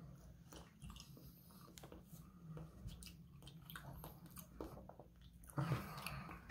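Faint, wet chewing and soft mouth clicks of someone eating raw sashimi, with one louder moment near the end.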